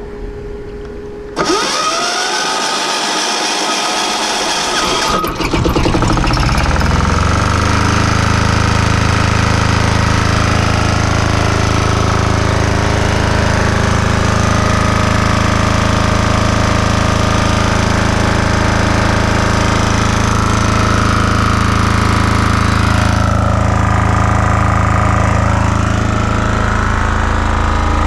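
Single-cylinder air-cooled Yanmar 186F-type diesel generator engine being started on its electric starter with the decompression valve open. The starter spins up for about four seconds, then the engine fires about five seconds in and settles into steady running, its exhaust going through a makeshift welded-on muffler.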